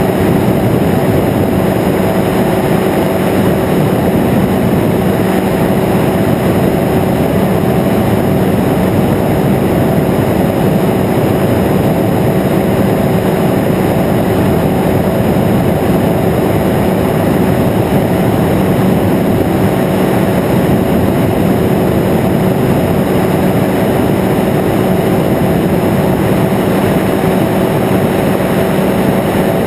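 Microlight trike's engine and propeller running steadily at cruise in flight, a constant drone with a steady hum, overlaid by wind rushing past the open cockpit.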